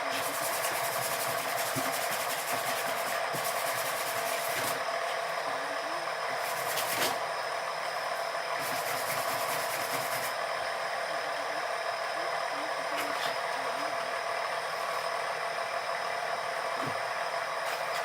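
Sandpaper rubbing over cured body filler on a fiberglass front lip, in passes of a second to three seconds each, over a steady hum.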